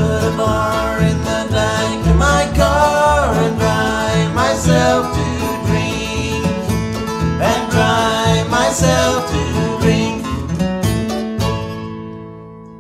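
Acoustic bluegrass band of guitar, mandolin and plucked double bass playing the instrumental ending of a song. Near the end the last chord rings out and fades away.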